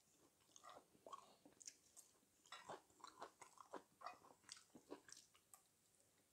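Quiet close-up eating sounds: chewing and biting of spicy stir-fried chicken (dak galbi), an irregular run of short wet mouth clicks and smacks, with light taps of chopsticks in the cast-iron pan.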